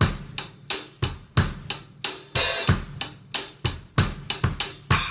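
A drum-kit groove that features a Pearl drum-set tambourine with a rubber striking ring, mounted on the hi-hat stand and hit with sticks, jingling over bass-drum thumps and the snare and hi-hat. The strokes come steadily, about three or four a second.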